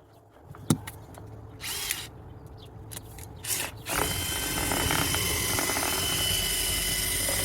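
A few knocks and scrapes, then about four seconds in a power drill starts and runs steadily with a constant whine, spinning a vent-cleaning brush through a clogged dryer vent.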